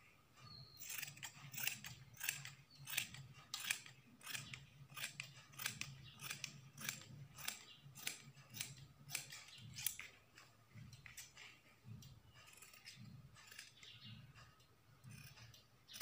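Scissors snipping through dress fabric, cutting a frock piece out along a chalk line in short repeated cuts, about two a second.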